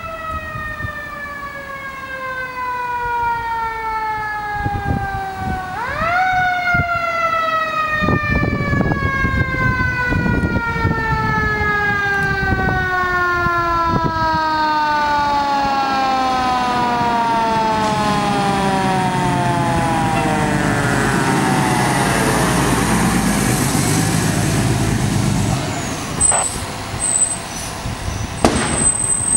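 Fire engine's mechanical siren, wound up twice: each time it climbs quickly and then slowly winds down over many seconds. Under it the truck's engine grows louder as the truck approaches and draws up, with a few sharp knocks near the end.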